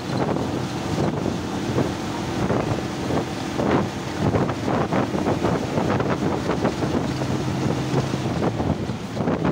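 Wind buffeting the microphone at the side window of a moving bus, in uneven gusts, with a steady low hum of the bus's engine and tyres beneath.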